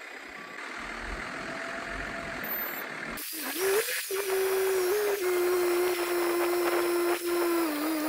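Carelift ZoomBoom telescoping forklift working under load as its boom pushes hay blocks into a trailer: engine running, then from about three seconds in a steady whine that holds with small dips.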